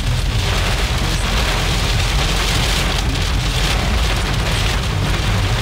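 Heavy rain pouring onto a car's windshield and roof, heard from inside the car, with a steady low rumble underneath.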